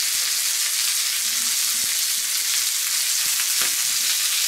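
Bacon-wrapped turkey schnitzels sizzling steadily on a very hot griddle plate over a charcoal fire, with a few faint clicks as metal tongs turn the pieces.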